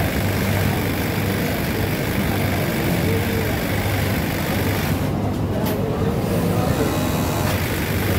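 Steady machine hum and whir of a garment factory sewing floor, with industrial sewing machines and their motors running. The high hiss drops away briefly about five seconds in.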